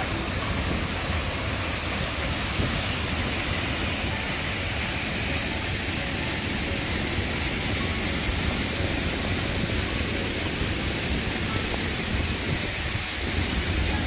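Steady rush of a tall single-drop waterfall pouring over a cliff edge: an even, unbroken noise with a heavy low rumble.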